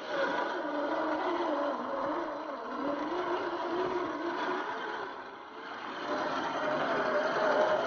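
Small electric motor and gears of a toy RC 4x4 jeep whirring as it drives, the pitch rising and falling with the throttle. The whir eases off for a moment a little past halfway, then picks up again.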